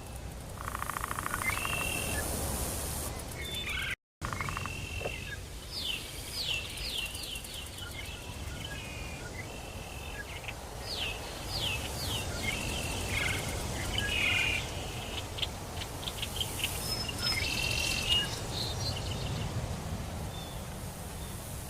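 Tropical forest ambience: birds giving repeated sweeping and chirping calls, over high-pitched insect buzzing, with a pulsing trill early on. The sound drops out completely for a split second about four seconds in.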